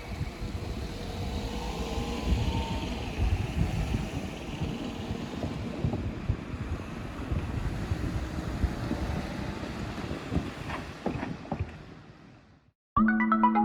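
A Nishitetsu electric train rumbling through a level crossing, with wind buffeting the microphone; the sound fades out about twelve seconds in. Electronic background music starts just before the end.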